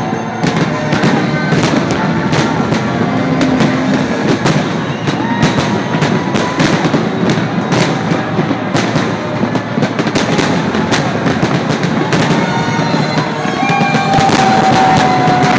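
Aerial fireworks shells bursting in a dense finale barrage, several bangs a second over a continuous crackling rumble. Held whistling tones sound over the bangs, with a long, slightly falling whistle near the end.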